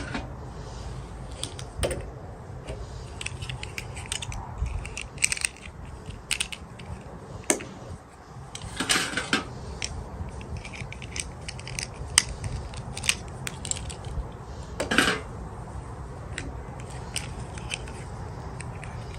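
Small plastic toy pieces and packaging being handled: scattered clicks and taps, with two short rustling sounds about nine and fifteen seconds in.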